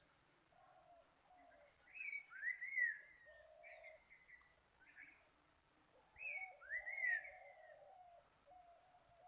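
Faint bird calls: a lower wavering call runs on throughout, and a burst of high whistled, gliding chirps comes twice, about two seconds in and again about six seconds in.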